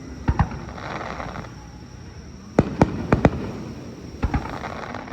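Fireworks display with aerial shells bursting in sharp booms. A quick pair comes just after the start, a cluster of four falls around the middle, and another pair comes past four seconds. A crackling fizz follows the first pair and returns near the end.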